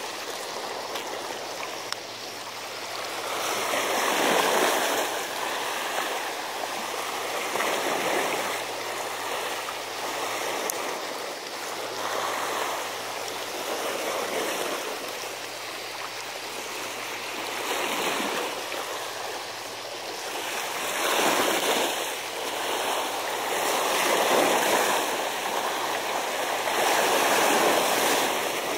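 Seawater washing against a sea embankment, swelling and ebbing in surges every few seconds.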